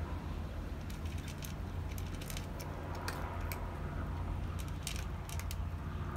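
A cat crunching dry kibble, eating from a plastic tub: irregular crisp crunches and clicks, several close together around the middle, over a steady low rumble.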